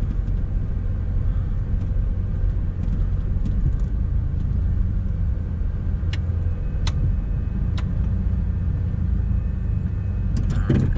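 Steady low engine and road rumble heard from inside a moving emergency vehicle's cab, with a few faint clicks and a short louder knock near the end.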